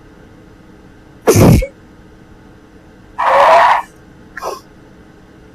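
A young woman sneezing twice, loudly, about two seconds apart, with a short quieter sound just after the second: an allergic sneezing fit set off by cats.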